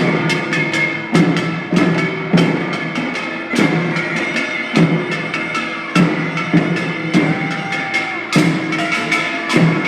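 Korean farmers' field-song (deulsori) performance: percussion strikes sharply and repeatedly over sustained musical tones.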